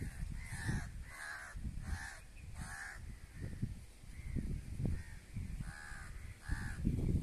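A bird calling repeatedly in short, arched calls: four in quick succession in the first three seconds, then two more near the end, over a low, uneven rumble.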